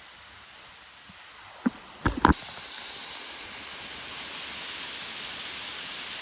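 Waterfall rushing, a steady wash of water noise that grows louder about two seconds in. A few short knocks, likely the microphone being handled, come just before the rise.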